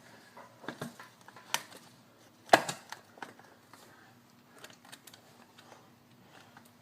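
Carburetor bank being pushed into its oiled rubber intake boots, making scattered light clicks and knocks. The loudest is a sharp knock about two and a half seconds in, as a carburetor seats.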